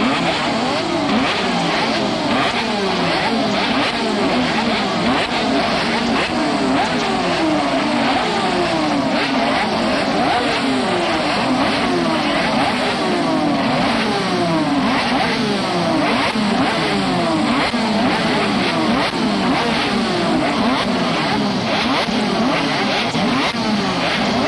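A pack of 125cc two-stroke Grand Prix racing motorcycle engines running together, their throttles blipped again and again in many overlapping rising and falling revs.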